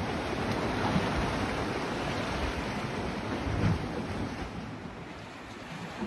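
Sea surf washing against concrete breakwater blocks, with wind buffeting the microphone in low gusts.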